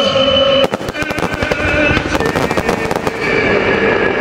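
Fireworks bursting and crackling in a fast run of sharp pops that thins out near the end, over a music soundtrack.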